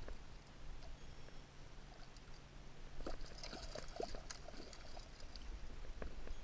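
Water splashing and dripping as a kokanee thrashes in a landing net at the side of a kayak, with a cluster of splashes about three seconds in.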